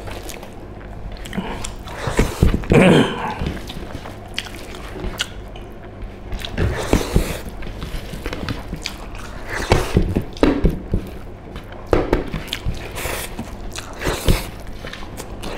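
Two men eating rice and pork leg curry with their hands and chewing through a clip-on microphone, giving irregular mouth clicks and chewing noises.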